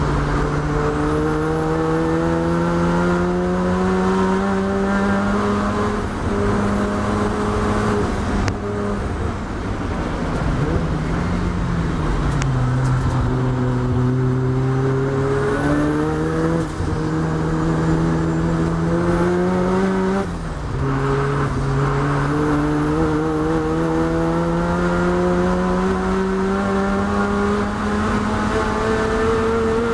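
Mazda RX-7's two-rotor rotary engine at racing speed, heard from inside the cockpit. The pitch climbs under full throttle, falls away about a third of the way in as the car slows for a corner, then climbs again with two quick upshifts in the second half.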